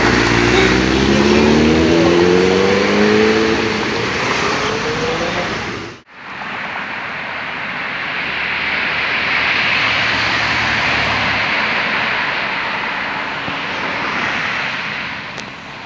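A superbike accelerating, its engine note climbing steadily for about five seconds. After a sudden break, there is a steady rush of road traffic that swells as cars pass and then fades.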